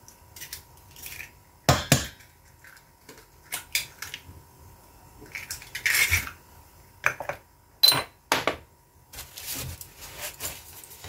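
Scattered knocks and clinks against a stainless steel stand-mixer bowl as eggs are cracked and tipped into it. The loudest knocks come about two, six and eight seconds in.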